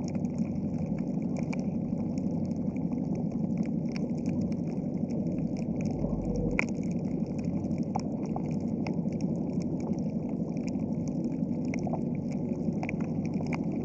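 Underwater reef ambience: a steady low rush of water with a dense, irregular crackle of sharp clicks.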